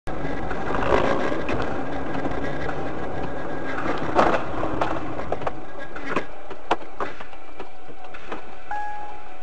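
Dashcam sound from inside a moving car: steady road and engine noise with scattered knocks and rattles, the loudest knock about four seconds in. Near the end an electronic beeping starts, two tones switching on and off.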